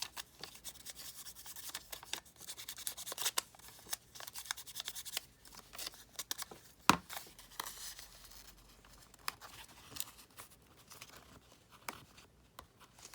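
Paper and cardstock being handled and fitted into a journal page: irregular rustling, sliding and small clicks, with one sharp tap about seven seconds in.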